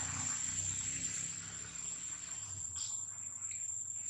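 Steady, high-pitched insect drone of crickets, with a low background rumble that fades out about three seconds in.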